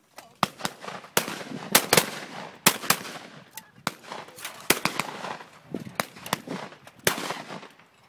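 Rapid, irregular shotgun fire from several shooters at once, a dozen or more shots in quick succession, some overlapping, some much louder than the others.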